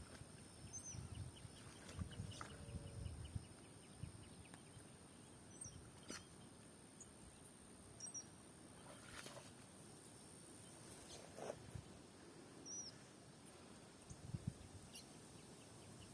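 Near silence outdoors: a few faint, short high bird chirps and scattered soft ticks.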